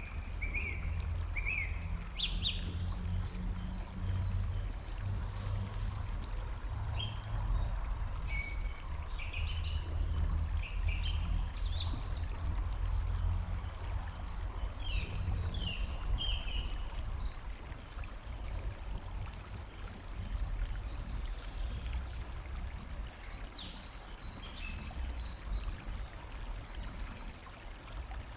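Wild birds chirping and whistling in short scattered phrases, with a steady series of high ticks at about two a second. Beneath them runs a continuous low rumble with a trickle of running water.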